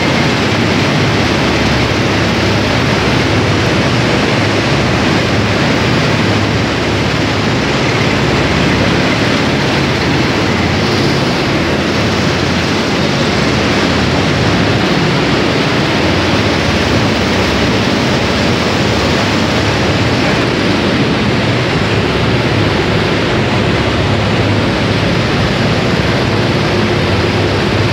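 Cotton ginning plant machinery running: a loud, steady mechanical din with no let-up.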